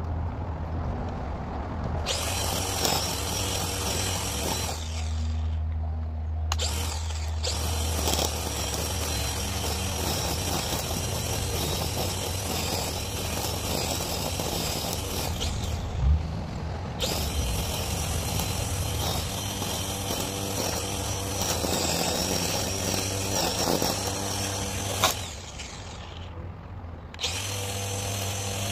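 Electric string trimmer running in stretches, its motor whining as the line cuts tall grass. It cuts out three times for a second or two as the operator lets go of the safety and start buttons, under a low steady hum.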